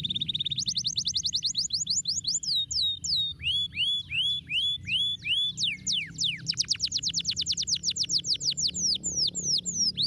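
Domestic canary singing in long rolling trills of quick repeated whistled notes. A fast buzzy trill gives way to slower falling notes, then to a very fast trill about six seconds in, then to slower falling notes again.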